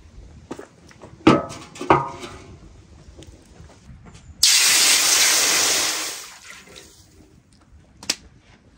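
Water poured from a clay jug into a large, wide, hot metal pan, hissing and splashing loudly. The noise starts suddenly about four seconds in and dies away over about two seconds as the water heats to steam. Before it come two loud, ringing knocks about half a second apart.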